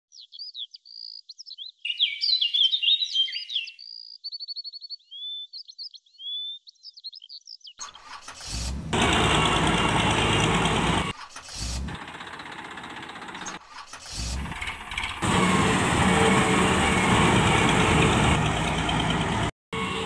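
A few seconds of clean electronic chirps and whistles over silence, then a steady engine-like running noise for a toy tractor, broken by brief cuts about 11, 14 and 19.5 seconds in.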